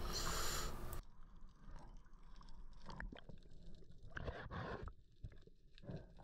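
Water sloshing at the surface for about a second, then the sound turns muffled underwater, with scattered clicks and knocks as a speargun shaft and metal clip are handled to fasten a speared salmon onto a float line.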